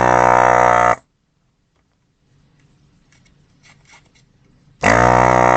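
Vacuum desoldering iron's suction pump buzzing in two bursts of about a second and a half each, one cutting off about a second in and the next starting near the end, as it sucks solder from the joystick module's pins; faint clicks between the bursts.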